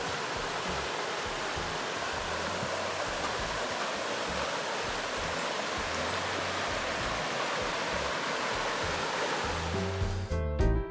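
River water rushing steadily, with faint background music under it. Near the end a music track with piano and drums comes in.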